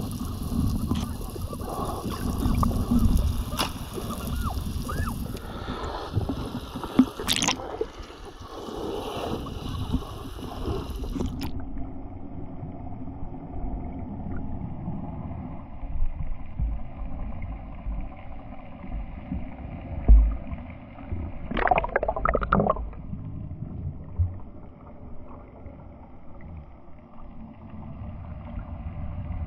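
Water sloshing and gurgling around a camera held at and under the sea surface, with a low rumble. About a third of the way in the sound turns dull and muffled as the high end drops away, and a short splashy burst comes near two-thirds of the way through.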